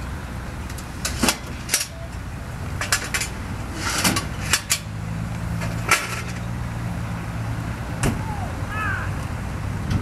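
Fire engine running with a steady low rumble that settles into an even hum through the middle, its pump supplying the hose on a vehicle fire. About ten sharp knocks and pops are scattered over it.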